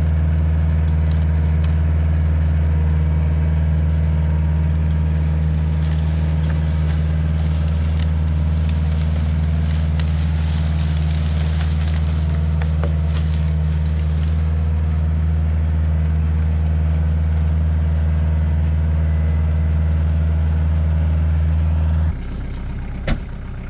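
Kioti DK40se tractor's diesel engine running at steady revs, a deep even hum, with scattered crackling about six to fourteen seconds in. The engine sound cuts off abruptly near the end.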